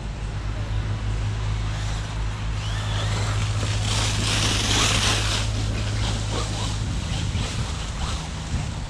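Brushless-motored FTX Carnage RC truck driving over dry fallen leaves: the electric motor whines, rising and falling with the throttle. A loud rush of tyres churning through the leaves swells about four to five seconds in, over a steady low hum.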